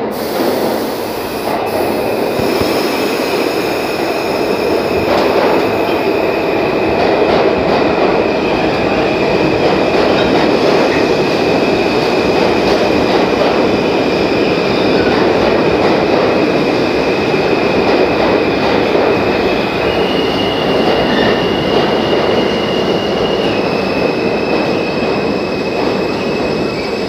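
New York City subway train moving along a station platform: a steady, loud rumble of wheels on rails with a high squeal from the wheels held throughout. The squeal jumps up in pitch for a few seconds past the middle, then drops back.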